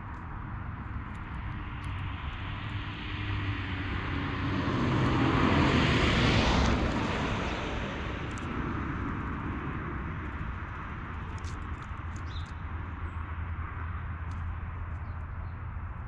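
A passing vehicle: its rushing noise swells to a peak about six seconds in, then fades away, over a steady low background hum.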